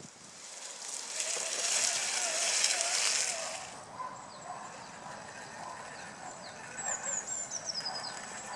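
Birds calling in woodland: a wavering honk-like call early on, then short falling chirps and a run of descending notes near the end. A loud rushing hiss lasts for about three seconds in the first half.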